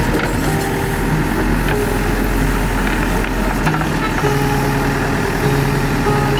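Manitou TLB 844S backhoe loader's diesel engine running steadily as its bucket digs into soil and rubbish, with music playing over it in held notes that change pitch every half second or so.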